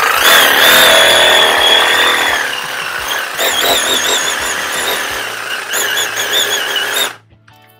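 Reciprocating saw running with a bar clamp fitted in place of its blade, shaking a clamped soda can. Its motor whine holds steady at first, then wavers up and down in pitch from about three seconds in, and cuts off suddenly about seven seconds in.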